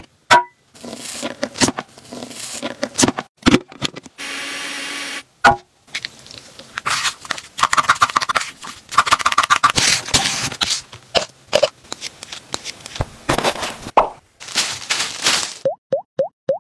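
A string of short, separate food-handling sounds with abrupt breaks between them: clicks, knocks and rustles. About eight seconds in, two plastic spatulas scrape and chop repeatedly on a metal tray.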